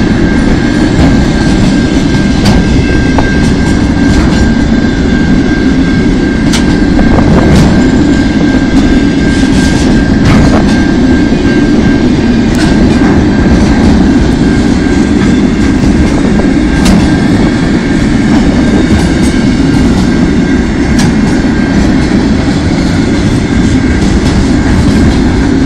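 Container train's loaded flat wagons rolling past at close range: a loud steady rumble with scattered sharp wheel clicks over the rails. A thin steady high tone runs through most of it and fades out near the end.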